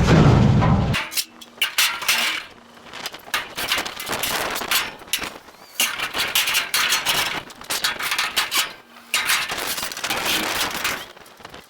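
Scrap metal clanking and banging in many irregular knocks as it is loaded, after a low rumble that cuts off about a second in.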